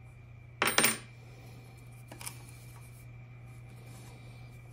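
Hand tools and parts being handled: a short clatter a little over half a second in and a faint knock near two seconds, over a steady low hum.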